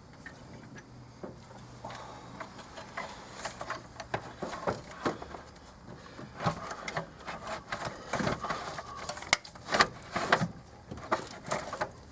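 Irregular clicks, knocks and short scrapes of a plastic intake manifold being handled and worked down into place on the engine. The sounds come busiest in the second half.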